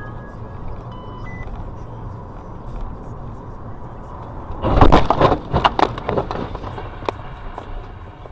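Car collision: steady driving rumble, then about five seconds in a burst of loud crunching impacts lasting about a second and a half, followed by a few scattered knocks. A few short beeping tones sound near the start.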